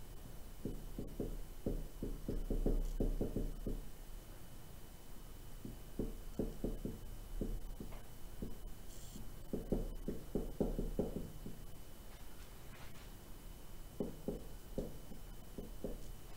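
Dry-erase marker writing on a whiteboard, in four bursts of quick short strokes with pauses between them. A steady low electrical hum and a faint high whine run underneath.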